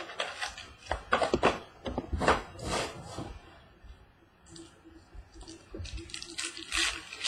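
Trading card box and pack packaging being opened and handled: irregular crinkling, tearing and tapping strokes, busiest in the first three seconds and again near the end.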